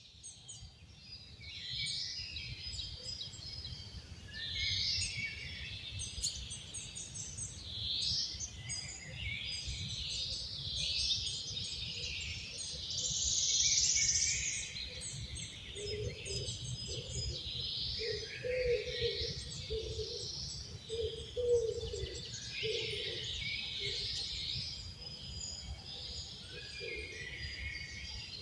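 Several songbirds singing at once, a dense overlapping chorus of chirps and trills over a low steady rumble. Past the middle, a lower-pitched call repeats in a string of short notes for several seconds.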